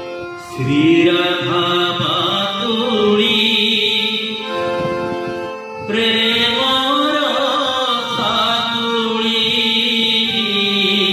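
A man's voice singing an Odia chhanda in long, held, ornamented phrases, with a harmonium sustaining chords beneath it. The voice comes in about half a second in and breaks briefly about halfway before the second phrase.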